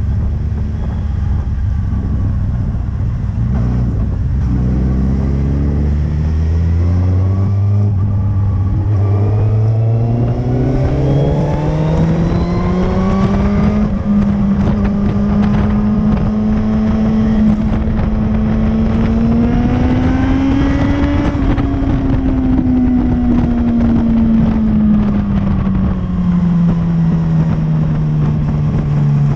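Motorcycle engine heard onboard under way on a race track. Its note climbs steadily for about ten seconds, holds, rises once more about twenty seconds in, then falls away as the bike rolls off the throttle, with wind rushing over the microphone throughout.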